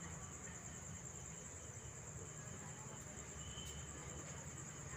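A steady, high-pitched chorus of crickets trilling, over a faint low rumble.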